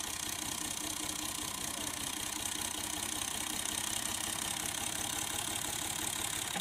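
Fiat 480 tractor's diesel engine running steadily, driving tubewell pumps through a long belt and shaft.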